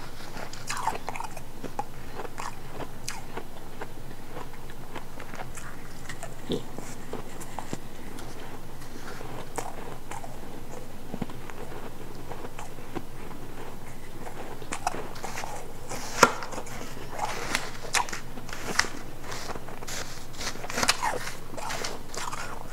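A person biting and chewing refrozen powdery ice, close-miked, giving crisp crunches. The crunches come sparsely at first, then thicken into steady crunching about two-thirds of the way through.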